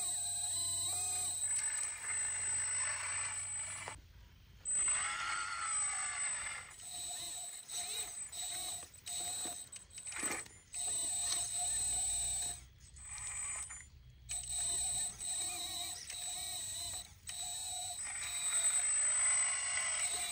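1/14-scale hydraulic RC excavator's pump motor running with a high steady whine. It cuts out and back in several times as the boom and bucket load dirt into a dump truck.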